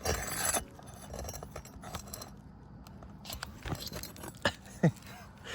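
A metal roofing tool scraping and clinking against asphalt shingles and their nails: a short scratchy scrape at the start, then scattered light metallic clicks, with two sharp clicks near the end.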